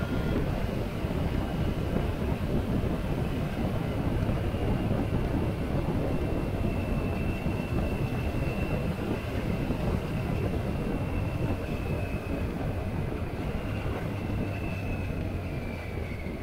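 Motorcycle riding at cruising speed: a steady rush of wind over the camera with the engine running underneath and a faint high whine that falls in pitch near the end as the bike eases off.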